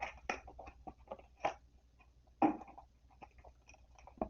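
Foil trading-card booster packs being handled and gathered: a run of short crinkles and taps, the loudest about two and a half seconds in.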